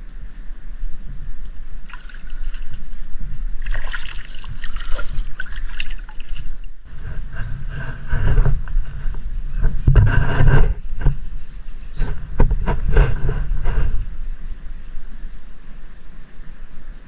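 River water splashing and sloshing close to the microphone as a man wades and gropes by hand for prawns. The splashes come irregularly, heavier from about the middle of the stretch and easing near the end.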